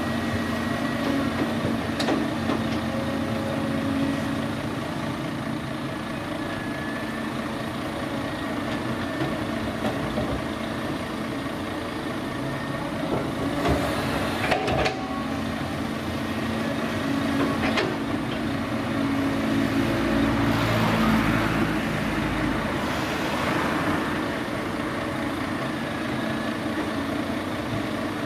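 Cat 323D tracked excavator's six-cylinder diesel running steadily under load while it digs, with a few sharp knocks of the bucket and steel. The sound grows louder and rougher for a few seconds about two thirds of the way through.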